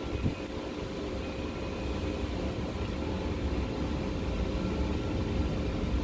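Steady low machine rumble with a faint constant hum.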